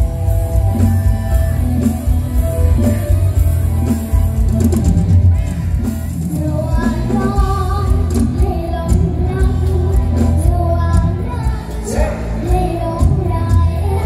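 Live mor lam band music played loud through a PA, with a steady heavy bass line. A young girl's singing voice comes in over it about halfway through.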